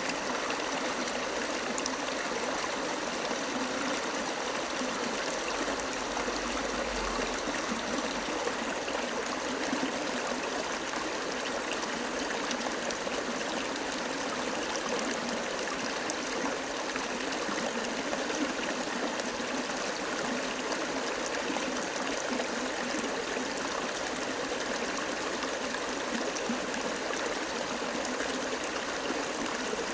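Flowing water running steadily like a stream, an even rush with trickling.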